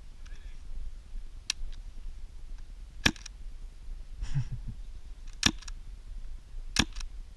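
Airsoft guns firing four sharp single shots, a second or two apart, each followed at once by a fainter click.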